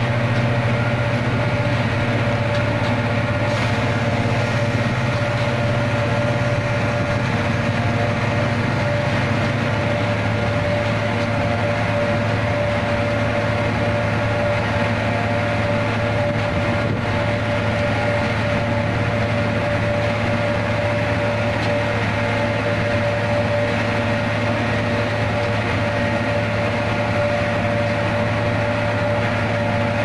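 Concrete mixer truck's diesel engine running steadily as the truck discharges concrete down its chute, with a steady whine over the engine. The engine note settles slightly lower about ten seconds in.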